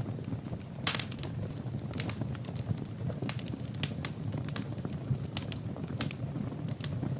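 Wood fire burning in a fireplace: irregular sharp crackles and pops from the burning logs over a steady low rush of flame.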